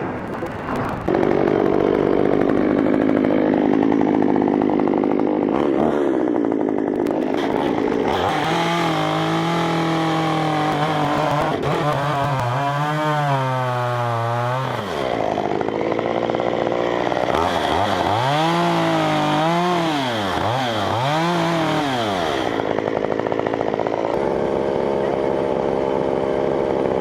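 Chainsaw running at high revs from about a second in, its pitch repeatedly sagging and rising as the engine loads and frees up in the cut.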